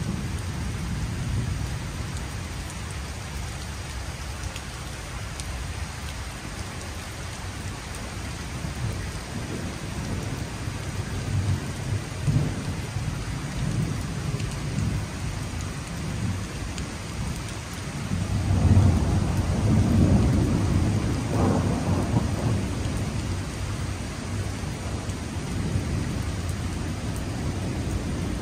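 Thunderstorm: steady rain falling on wet paving, under low rolling thunder that swells loudest about two-thirds of the way through.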